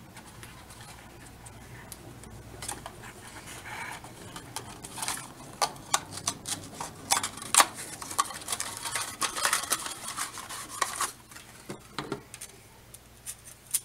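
A small cardboard toy box being handled and opened, and a plastic slinky pulled out: irregular crinkles and clicks, thickest through the middle stretch, quieter at the start and near the end.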